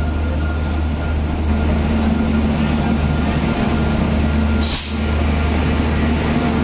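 WAP-5 electric locomotive rolling into the platform and past at slow speed, with a steady deep hum. A short sharp hiss of air sounds a little over two-thirds of the way through.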